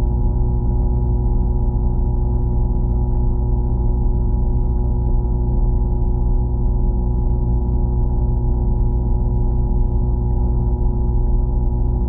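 Steady low droning hum with several held tones, muffled and without highs, unchanging throughout.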